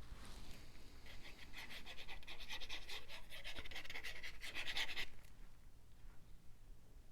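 Quick run of scratchy rubbing strokes on cardstock, as a fold along a score line is creased down, stopping abruptly about five seconds in.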